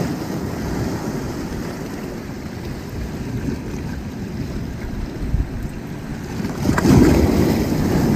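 Sea waves washing in with wind buffeting the microphone, a low rushing noise that swells louder about seven seconds in.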